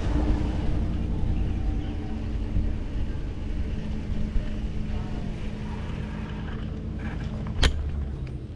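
Low rumble of a vehicle moving slowly, with a steady hum, and one sharp click near the end.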